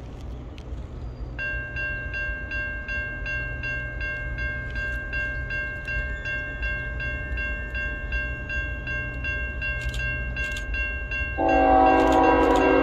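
A grade-crossing warning bell starts about a second and a half in, an even, rapid dinging. Near the end an approaching train's locomotive horn sounds, a loud sustained chord of several notes, over a low rumble.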